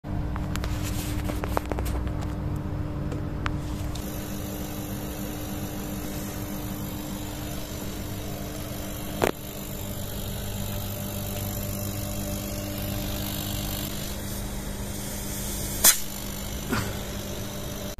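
Small hermetic refrigeration compressor and fan running with a steady hum, switched by a newly wired Carel IR33 controller under test. A couple of sharp clicks sound through it, one about nine seconds in and one near the end.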